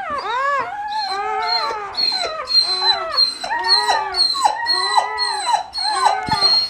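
Newborn puppies crying: a continuous string of short, high squealing whines, each rising and falling in pitch, about two to three a second.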